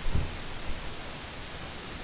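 A dull low thump just after the start, a fainter one a little later, over steady background hiss.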